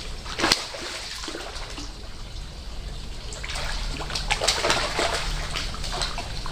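Pond water splashing and trickling, with a sharp splash about half a second in and a run of splashes about four to five seconds in.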